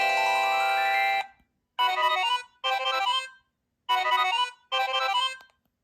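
Preloaded ringtone playing from a Sanyo SCP-8100 cell phone's speaker, with several electronic notes sounding together. A held chord with a climbing run of notes cuts off about a second in; then a short tune plays four times, in two pairs with brief gaps.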